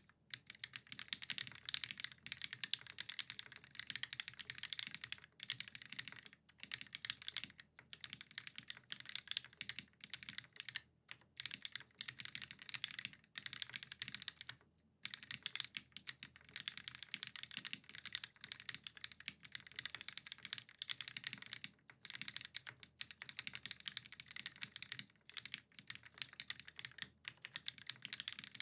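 Steady fast typing on a mechanical keyboard with lubed vintage Cherry MX Black linear switches, an aluminium plate and GMK keycaps, with a few short pauses.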